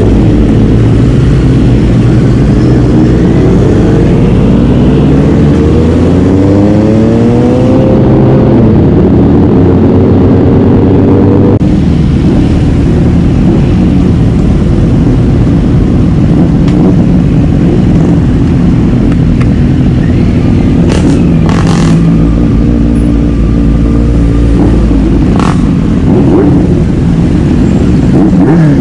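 Motorcycle engine on the move. It revs up steadily for several seconds, drops back about eight seconds in as it shifts up, then runs at a steady speed. A few short clicks come later on.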